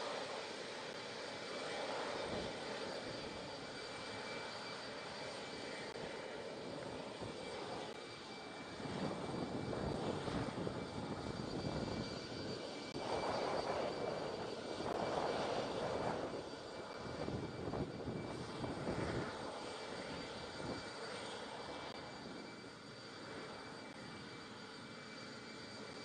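Jet aircraft noise on an airport apron: a continuous rushing rumble with a thin steady high whine over it, swelling louder for several seconds in the middle and easing off near the end.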